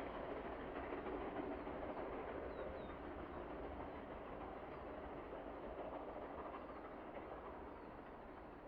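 Steam train running with a steady rolling rumble that fades gradually as it moves away.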